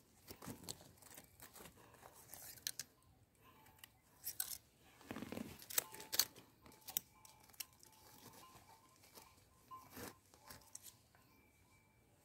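Faint, irregular scraping and crunching of a knife blade and fingers digging through stony, gravelly soil to free a young termite mushroom, with small clicks of pebbles knocked together.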